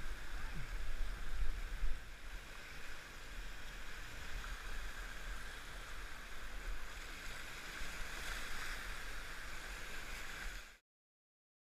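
Whitewater rapids rushing around a kayak, an even churning hiss over a steady low rumble. The sound cuts off suddenly near the end.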